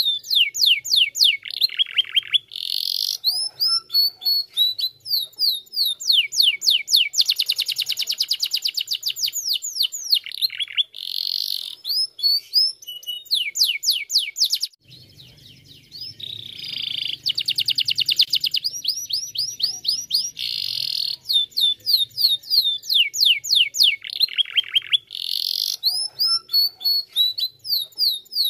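A yellow domestic canary singing a long, loud song of rapid trills and quick repeated whistled notes, broken by one short pause about halfway through.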